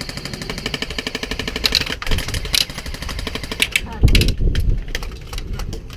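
Airsoft rifle firing on full auto: a fast, even stream of sharp cracks for about four seconds, then scattered single shots. Wind buffets the camera microphone with low rumbling gusts.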